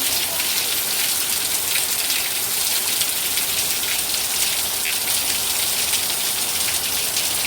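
Steady rain falling: a dense, even hiss with scattered individual drop ticks.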